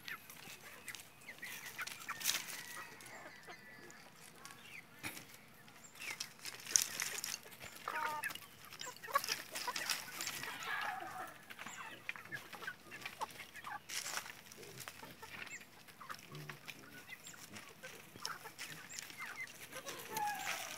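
Free-range chickens clucking, with short calls now and then, most of them about halfway through and again near the end. Scattered clicks and rustles of birds scratching and pecking in dry straw run underneath.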